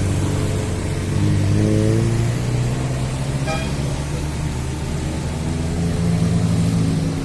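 Coach bus engine running, revving up a little about a second in and again near the end, with a brief faint high tone about halfway.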